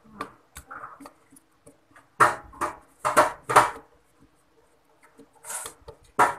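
Screwdriver turning out a screw from the sheet-metal frame of a Kyocera fuser unit: short metallic clicks and scrapes, four close together about two to four seconds in and two more near the end.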